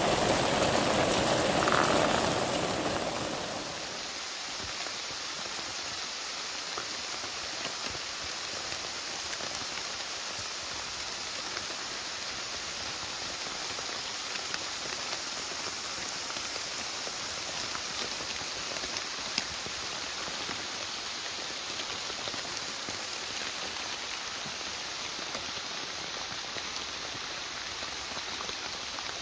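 Steady rain falling, with scattered louder drop ticks. A louder rush with more mid-range body fills the first three or so seconds before it settles to an even hiss.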